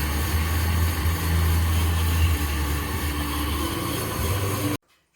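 Car engine running steadily with a hiss of grinding: a knife-sharpening stone held against the spinning front brake disc of a Volkswagen Fox to skim off the lip that made the new pads squeal. The sound cuts off abruptly near the end.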